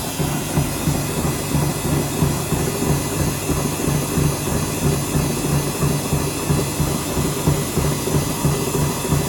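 Samsung front-loading washing machine running, its drum turning with a steady low hum that pulses about twice a second.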